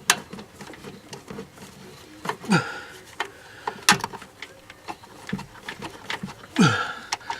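Scattered clicks and small knocks of pliers gripping and working a distributor rotor that is rusted onto its shaft and won't come off. Two short falling-pitch sounds stand out, one about two and a half seconds in and one near the end.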